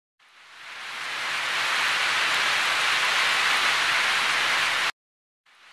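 A steady, even hiss that fades in over the first second or so and cuts off abruptly about five seconds in.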